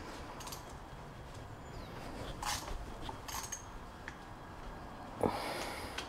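Quiet work with a hand tool tightening the clamps of the handlebar controls: a few faint metal clicks, then a short, louder breath about five seconds in.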